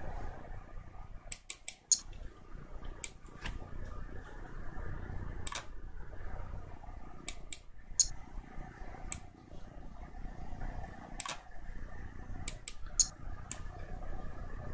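Computer mouse buttons clicking, sharp and irregular, singly and in quick runs of two to four, over a steady low hum.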